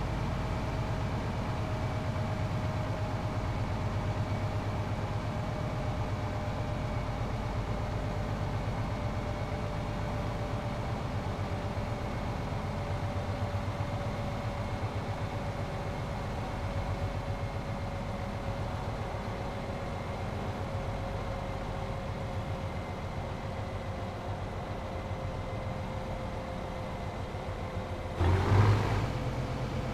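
Straight-piped Scania 500S truck's inline-six diesel idling steadily, with a faint high whine slowly sinking in pitch beneath it. About 28 seconds in, a brief louder burst stands out, the loudest moment.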